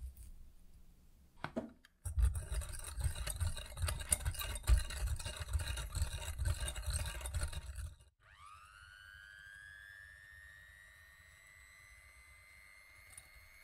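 Electric hand mixer whipping instant coffee, sugar and water in a glass bowl. At first it is a loud, clattery whirr with a low rumble. After a short break it becomes a quieter, smooth motor whine that rises in pitch over a few seconds and then holds steady.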